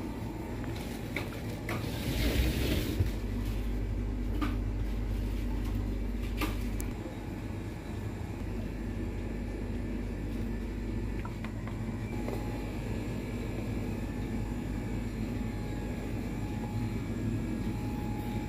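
Steady low hum of supermarket refrigerated display cases and ventilation. A brief rustle comes about two seconds in, and a few sharp clicks are scattered through it.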